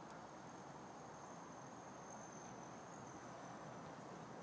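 An insect singing: one faint, steady, high-pitched note that holds level and breaks off near the end, over faint outdoor background hiss.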